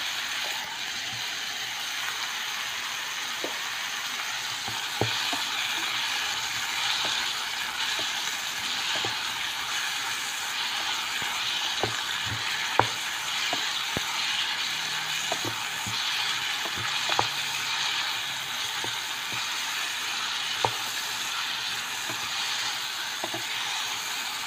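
Oil sizzling steadily as texturized vegetable protein fries in a pan with garlic and onion. Scattered clicks and a few louder taps come from a plastic rice paddle stirring and scraping against the pan.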